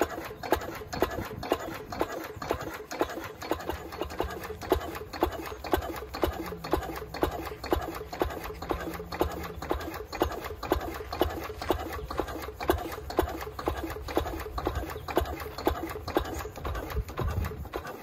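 1947 Lister CS 6/1 single-cylinder diesel stationary engine running slowly at about 250 rpm, with a steady, even beat of firing knocks and valve-gear clatter.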